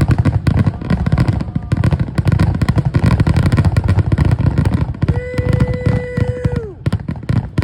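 Fireworks going off in a dense, rapid barrage of bangs and crackling. A steady, held pitched tone sounds over them for about a second and a half, starting about five seconds in.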